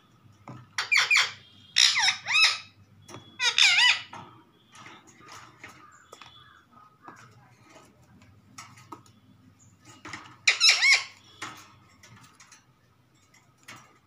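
Rose-ringed parakeet giving short, shrill squawks: three in the first four seconds, then another pair about ten seconds in, with faint clicks and rustles in between.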